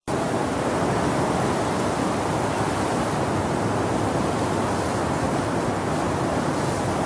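Steady, even rushing hiss with no tone or beat, starting abruptly at the very beginning.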